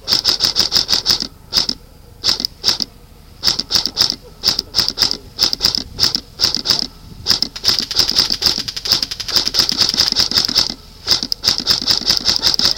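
Airsoft rifle firing on full auto in repeated bursts of rapid clicking shots, some short and some lasting several seconds, with brief pauses between them.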